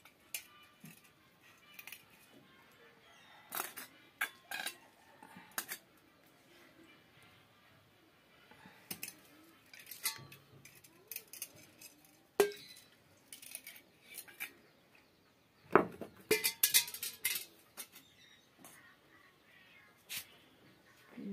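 Stone muller knocking on a wet stone grinding slab and clinking against a small metal bowl of water, in scattered sharp clicks with a quick run of them near the end.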